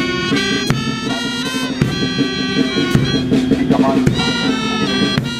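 Parade pipe band playing a march: a bagpipe melody over a steady drone, with a drum beat about once a second.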